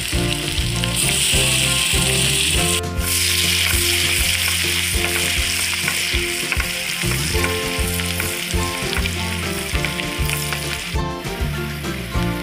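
Sliced onions sizzling and frying in hot oil with bay leaves in a pan, stirred with a spatula partway through. Background music plays underneath.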